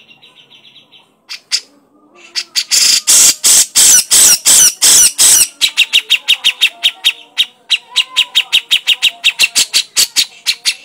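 Cucak jenggot (grey-cheeked bulbul) giving its harsh chattering call. About three seconds in comes a loud, raspy burst of scolding notes, followed by a fast run of sharp repeated notes, about six or seven a second.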